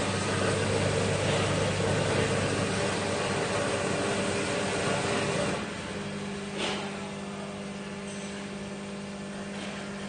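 Grain weighing-and-packing machine running as it fills a 4000-gram portion of rice, with a steady hum and a rushing noise. A little over halfway through, the sound drops to a quieter hum as the feed slows to a fine trickle near the target weight, with a brief click shortly after.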